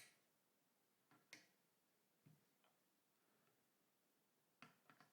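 Near silence broken by a few faint, short clicks and taps, about six in all, from the action screws of a Mauser K98k rifle being worked loose to free the action from the stock.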